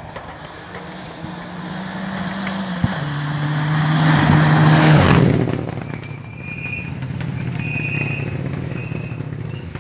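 Rally car engine running hard on a gravel stage, growing louder as the car approaches, with a single sharp pop about three seconds in where the engine note drops. It passes at its loudest about five seconds in with a burst of gravel noise, then the engine fades.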